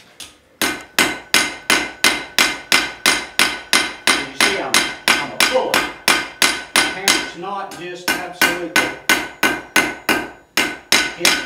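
Blacksmith's hammer striking red-hot horseshoe iron on an anvil, about three ringing blows a second with a couple of brief pauses. The iron is being squared up and drawn out into a letter-opener blade.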